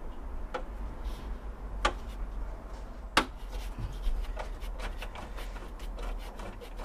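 Hands handling and pulling at a loose wiring connector in a car's engine bay: a few light clicks and rubbing, the sharpest click about three seconds in, over a steady low hum.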